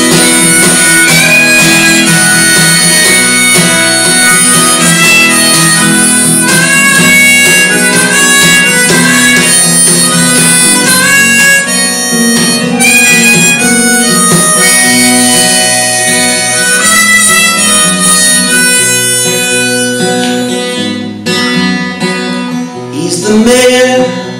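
Harmonica solo, played from a neck rack over a strummed acoustic guitar: long held notes and short runs on the harmonica above steady strumming. The playing drops quieter a few seconds before the end.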